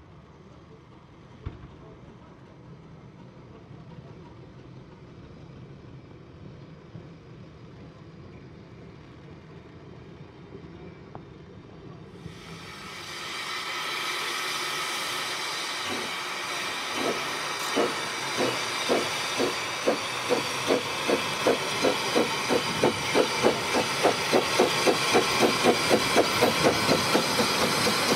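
George England 0-4-0 saddle-tank steam locomotive Welsh Pony starting a train: a loud hiss of steam from its open cylinder drain cocks, then exhaust beats that begin slowly a few seconds later and quicken to about three a second, getting louder as it passes close. Before this, for about the first twelve seconds, there is only faint background with a couple of clicks.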